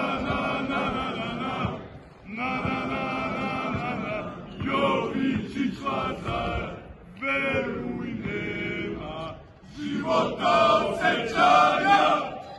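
A crowd of men chanting in unison, in sung phrases of about two seconds with short breaks between them. Near the end the chanting gets louder and rougher, closer to shouting.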